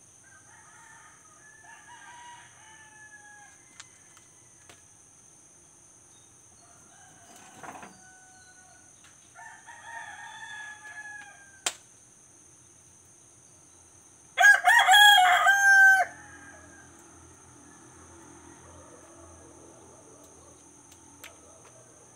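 Roosters crowing before dawn: several faint distant crows, then one loud close crow of about a second and a half about two-thirds of the way through. A single sharp click comes just before the loud crow.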